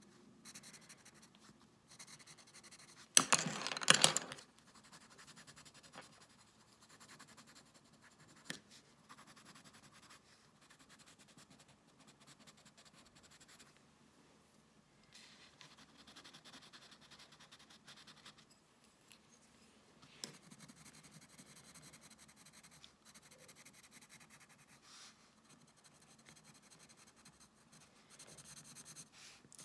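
Pencil crayon shading on sketchbook paper: soft, irregular scratching strokes that stop and start. A brief, much louder rustling scrape comes about three seconds in.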